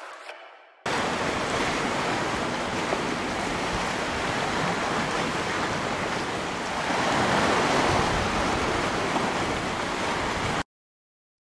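Steady rushing of sea surf and wind on the camera's microphone, starting about a second in, swelling a little around seven seconds in, and cutting off abruptly near the end.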